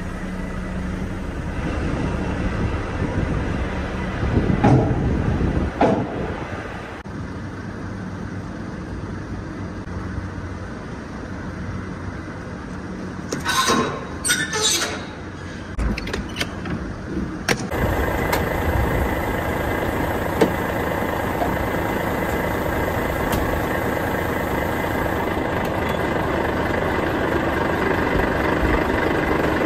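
Steady running of a parked truck, with metal clanks as the trailer's rear doors are swung shut and latched about halfway through.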